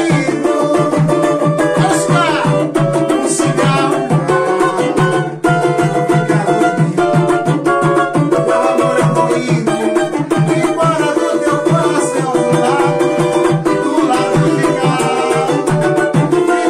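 Brazilian pagode banjo (banjo-cavaquinho) strummed rapidly in a samba/pagode rhythm, its drum head giving each stroke a sharp, percussive attack, with a man singing along.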